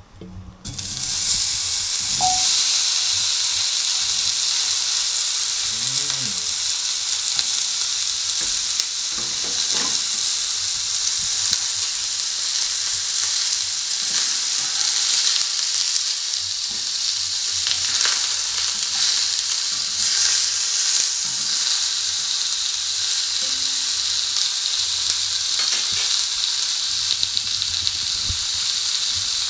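Saikoro beef cubes sizzling in a smoking-hot cast iron pan: the sizzle starts sharply about a second in as the cubes hit the hot oil, then runs steadily, with a few light clicks as they are moved.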